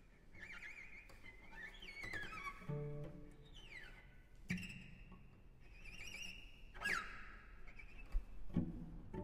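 Solo cello playing contemporary music with extended techniques: high harmonics sliding downward in glissandi, sudden accented bow attacks about halfway through and again a couple of seconds later, and a short plucked note near the end.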